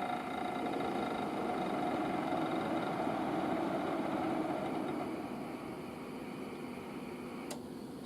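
Fan of a VP-1000 unit running with a steady whirring hum and a few faint steady tones. It eases down a little about five seconds in, and there is a single sharp click shortly before the end.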